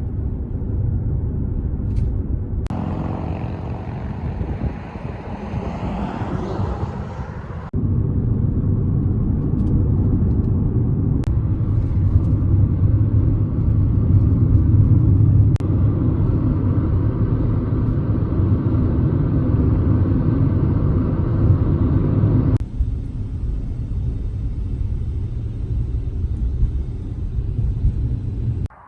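Car driving: a steady low rumble of road and engine noise, changing abruptly several times where clips are cut together.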